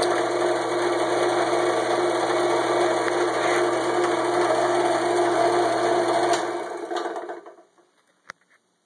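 Belt-driven stationary jigsaw with cast iron pulleys and V-belt running steadily with an even hum, described as much quieter and very stable. It is switched off about six and a half seconds in and spins down over about a second, followed by a faint click near the end.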